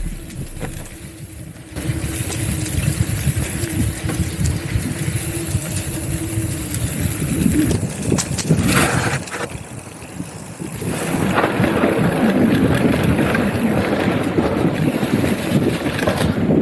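Wind buffeting an action camera's microphone while riding: a steady rushing that eases off briefly about a second in and again around ten seconds in.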